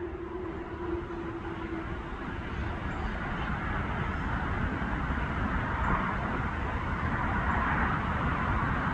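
Passing vehicle noise, a rumble and hiss that slowly grows louder, with the last faint low tone of the warning siren dying away in the first two seconds.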